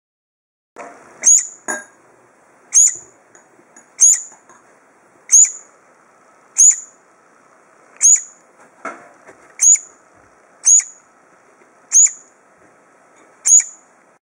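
Brown-eared bulbul nestling giving short, sharp, high-pitched begging calls, repeated about every second and a quarter, around ten in all. A couple of soft knocks of handling come in near the start and about nine seconds in.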